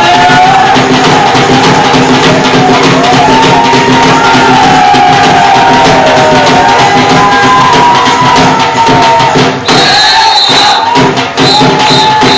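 Loud Punjabi bhangra music with percussion and a gliding melody over a steady drone. The music breaks off briefly about ten seconds in, then comes back with short repeated high notes.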